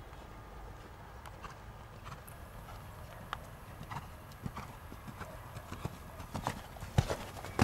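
Horse cantering on a sand arena, its hoofbeats thudding in a steady rhythm that gets louder over the last few seconds, with a sharp strike about seven seconds in.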